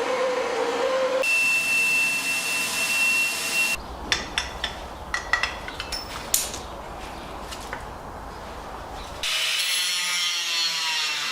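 Workshop tools cutting and shaping aluminium sheet, in abrupt short takes: a power tool with a steady high whine, then a run of sharp taps and knocks about three seconds in, then another power tool running near the end.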